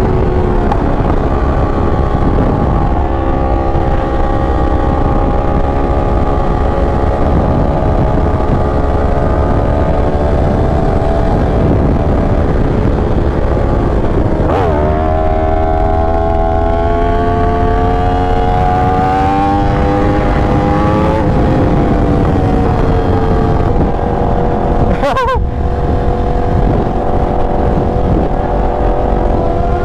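Yamaha R1 inline-four running under way through a titanium Racefit half-system exhaust: the engine note holds steady, drops sharply about halfway, climbs again, and steps down once more about two-thirds through.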